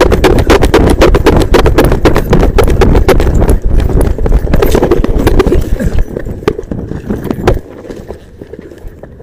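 Rapid running footfalls on pavement during a foot chase, picked up by a police officer's body-worn camera, over a loud low rumble. The running stops suddenly about three-quarters of the way through.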